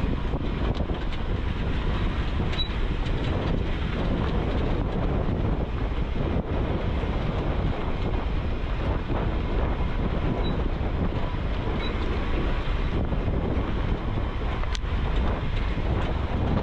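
Jeep Wrangler JK on the move: steady engine and road noise with wind buffeting the microphone.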